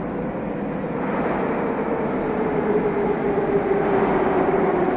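Metro train coming into the station through the tunnel: a rumble that grows steadily louder, with a whine that slowly falls in pitch.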